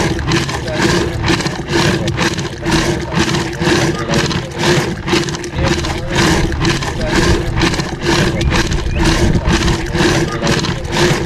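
Hand-pulled wooden churn turning in a clay pot of yogurt, swishing back and forth in a steady rhythm of about three to four strokes a second, with a steady tone underneath.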